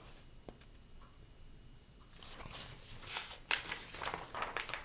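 Paper rustling in short scrapes with a soft click, starting about two seconds in: a page of a picture book being turned.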